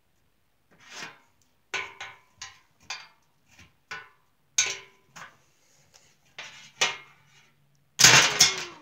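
Plastic wrestling action figures knocked and slammed by hand against a tabletop: a series of irregular clacks and thuds, the loudest slam about eight seconds in.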